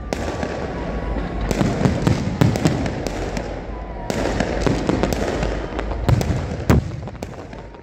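Aerial fireworks display: shells bursting overhead in a rapid, uneven run of bangs and crackles over a continuous low rumble, with the sharpest bangs near the end.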